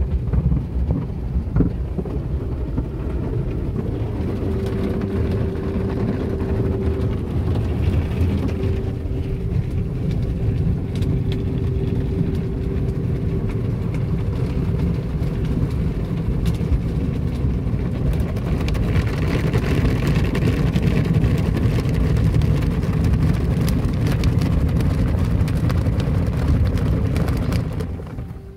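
Cloth wash strips of a tunnel car wash slapping and scrubbing against a car's windows and body, heard from inside the car: a loud, steady rumble with a faint steady hum, falling away near the end.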